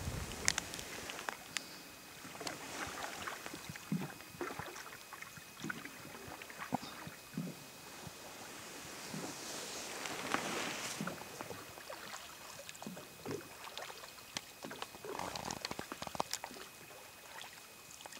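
Paddling a small boat on a river: irregular water splashes and drips from paddle strokes, with scattered light knocks and two longer swishes of water about ten and fifteen seconds in.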